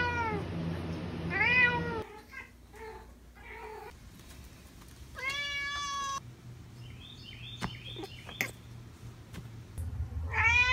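Scottish Fold cat meowing again and again: two short arching meows at the start, a long level meow about five seconds in, a few quick chirps around seven seconds, and another long meow near the end. A few sharp taps come around eight seconds in.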